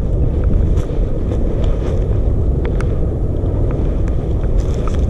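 Wind buffeting the microphone in a steady low rumble, with a few faint clicks and rustles of movement through dry grass.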